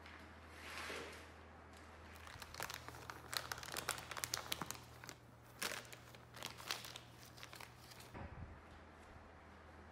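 Clear plastic sheeting of a steam bag crinkling and crackling as gloved hands handle it around clamped oak strips. The crackling comes in irregular bursts, mostly between about two and seven seconds in, over a steady low hum.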